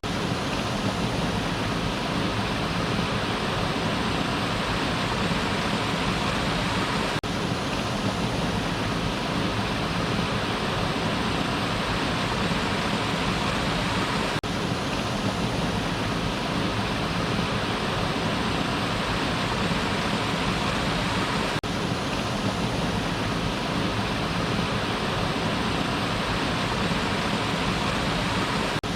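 Waterfall: a steady, even rush of falling water, broken by a brief dip in level about every seven seconds.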